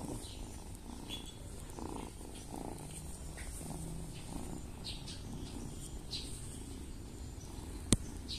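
A domestic cat purring steadily, with one sharp click near the end.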